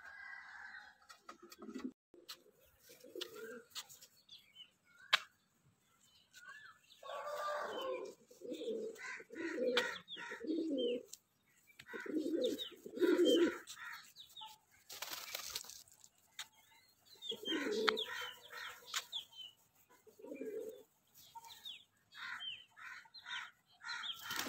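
Fantail pigeons cooing in repeated low bouts, with faint higher chirps of other birds and a brief flutter of wings about midway.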